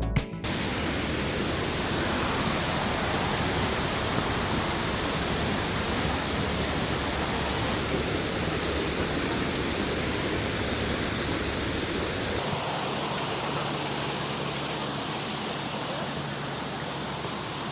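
Waterfall rushing: a steady, dense roar of falling water. The sound shifts slightly about twelve seconds in, losing some of its low rumble.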